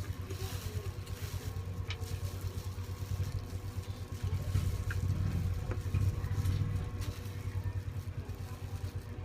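A steady, low buzzing hum that swells a little in the middle, with a few faint clicks.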